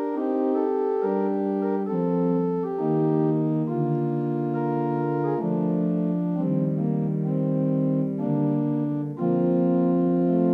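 Church organ playing slow held chords, the harmony changing about every second.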